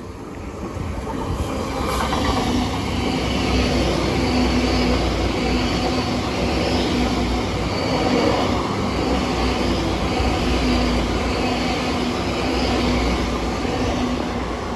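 Two coupled GWR Class 800 trains passing through a station at speed. The rumble of wheels on rail builds over the first two seconds, then holds as a steady, loud rush of coaches going by, easing slightly near the end.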